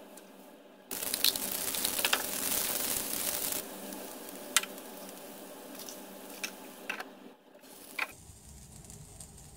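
A dosa sizzling on a hot non-stick pan, loudest for a couple of seconds starting about a second in, then quieter, with a few sharp clicks.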